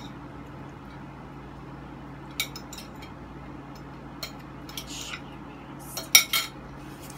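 Spoons and forks clinking and scraping against plates as food is scooped up: scattered sharp clinks, the loudest cluster about six seconds in.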